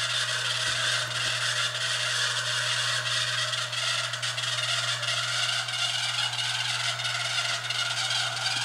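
Steady electrical hum and loud hiss from an open sound-system or microphone feed, unchanging throughout, with no speech or chanting in it.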